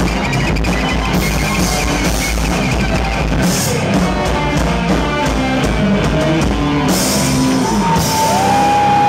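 Live rock band playing loud, with a drum kit and electric guitar. Near the end the drums drop out and one held note, bending up and down in pitch, rings on.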